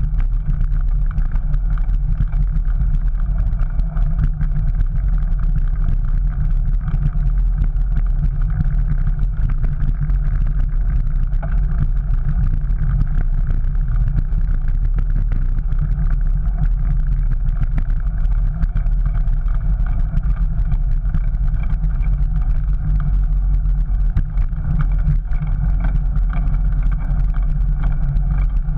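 Steady low rumble of wind and tyre noise as a bicycle rolls along brick paving, heard through a GoPro camera's microphone.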